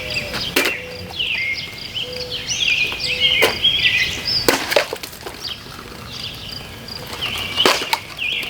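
Sharp cracks of plastic bottles being slashed by a fully serrated folding knife: four or five separate strikes a second or more apart. Birds chirp steadily underneath.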